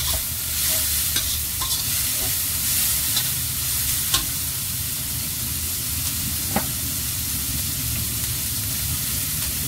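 Shredded cabbage, carrot and wood ear mushroom sizzling in a stainless steel wok while a metal spatula stirs and scrapes through them, with a few sharp clinks of the spatula against the wok.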